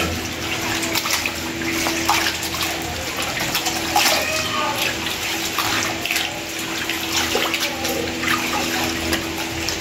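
Tap water running into a basin of water while hands swish and rub raw fish pieces in it, with frequent small splashes. A faint steady hum sits underneath.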